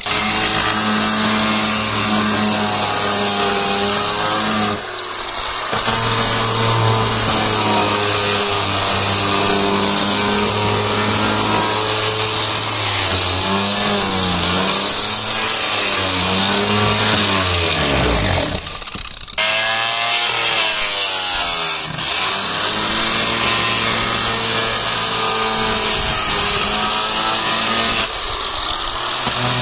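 Large electric angle grinder with a sanding pad running against hardwood, its motor whine wavering in pitch as the pad is pressed into the wood. About two-thirds through, the pitch falls away and then climbs back up as the motor winds down and spins up again.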